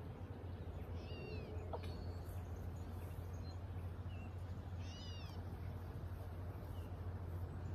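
Short, high, mewing chirps from a bird, the clearest about a second in and about five seconds in, with a few fainter chirps between, over a steady low hum.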